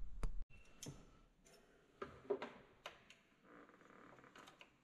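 Scattered light clicks and taps of metal parts and a hand tool being handled in a vehicle's engine bay, with a brief low rumble that stops about half a second in, as a throttle part is test-fitted by the carburetor.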